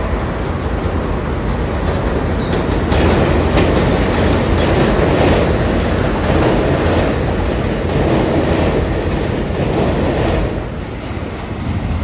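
New York City subway train running across the Williamsburg Bridge, its wheels clattering rhythmically over the rail joints. The sound swells about three seconds in as the train passes close by, then falls away near the end.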